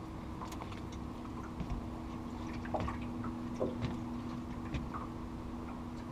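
Small splashes and drips of water against a boat, over a steady motor hum.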